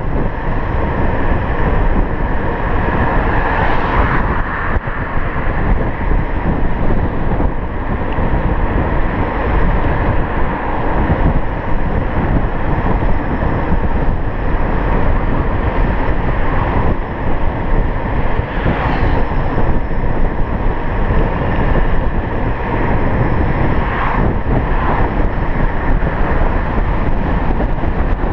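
Steady rush of wind noise on the microphone of an electric scooter riding at road speed, with the traffic noise from the road beneath it. Brief swells a few times, with faint steady tones above the noise.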